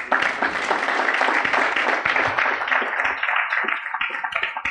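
Audience applauding: dense clapping that thins into scattered separate claps near the end.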